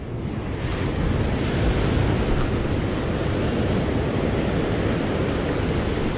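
Ocean surf breaking against a rocky shore: a steady rushing noise that swells over the first second, with wind buffeting the microphone.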